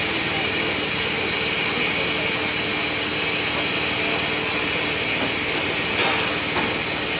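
Bubble film making machine running steadily, a constant hiss over a steady low hum, as bubble wrap film feeds over the rollers and winds onto the roll. A couple of faint ticks come near the end.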